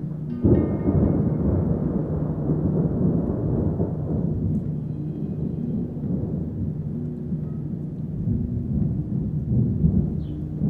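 Thunder: a sharp clap about half a second in, then a long low rumble that swells and fades in waves.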